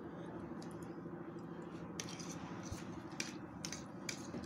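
Faint clicks and taps of a spoon and fork against a plate of noodles, several short ones in the second half, over a low steady background hum.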